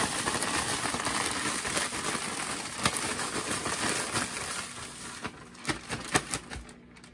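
Plastic bag of white sugar and pumpkin pie spice being shaken to mix it: a steady crinkling and rustling of the plastic and sugar for about five seconds, then a few separate crinkles as the shaking stops.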